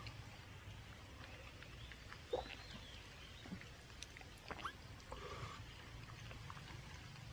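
Quiet eating sounds from someone chewing soft braised pork leg: wet lip smacks, small mouth clicks and a few brief squeaky sounds, scattered and irregular, over a faint steady low rumble.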